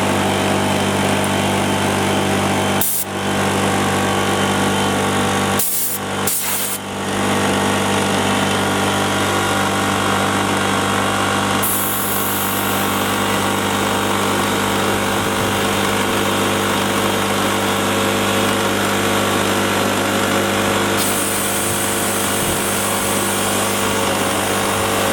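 Air compressor running steadily, its motor and pump giving a constant mechanical hum, with a couple of brief breaks about three and six seconds in. It is running to supply air for seating the tire bead on the ATV rim.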